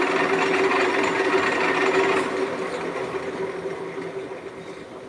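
Metal lathe running: a steady hum with a hiss over it. About two seconds in the hiss drops away and the whole sound fades steadily as the lathe winds down.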